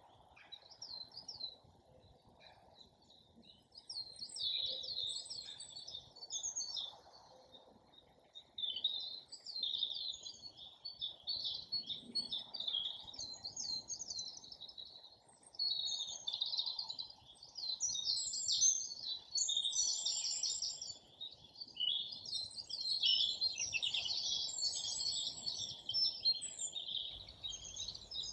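Woodland songbirds singing: high, twittering phrases that come and go every few seconds, busier in the second half, over a faint steady low background noise.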